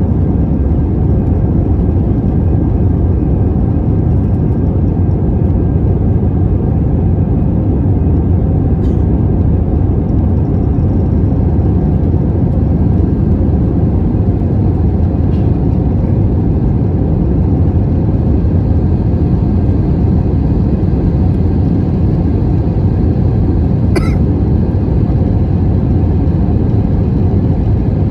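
Steady cabin roar of an Airbus A320-family jet airliner climbing after take-off, engine and airflow noise heard from a seat over the wing, heavy and low. A faint click about two-thirds of the way in.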